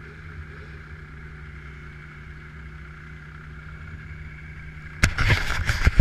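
Snowmobile engine idling steadily. About five seconds in, loud rough rumbling and knocking breaks in as a gloved hand grabs and covers the camera.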